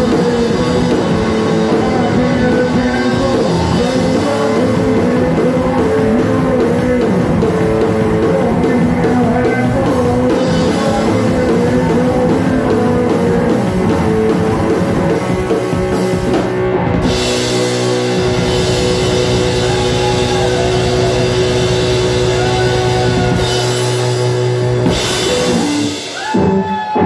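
Live rock band playing loud, amplified heavy rock on electric guitar and drum kit, with a brief dip in the music near the end.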